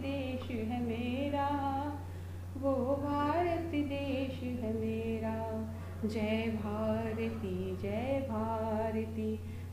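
A woman singing a melody in held, wavering notes with backing music, over a steady low hum.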